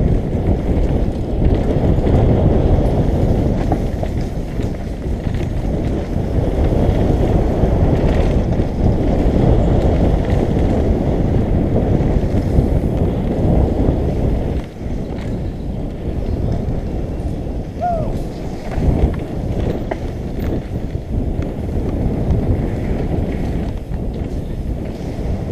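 Wind buffeting a helmet-mounted camera's microphone during a fast downhill mountain-bike run, mixed with the rumble and rattle of the bike over a dirt trail. Short high squeaks come about 18 s in and again near the end.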